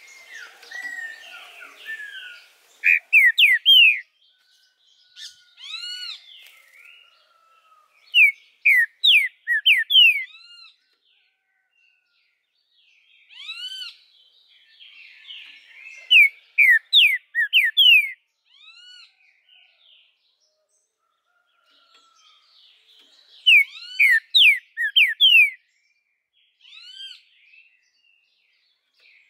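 Green-winged saltator (trinca-ferro) singing: short phrases of loud, clear whistled notes, repeated every few seconds with pauses between, and softer chatter in some of the gaps.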